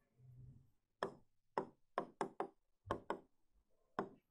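A stylus pen tapping and knocking against the screen of an interactive writing board as handwriting goes on, about eight short, sharp, unevenly spaced taps.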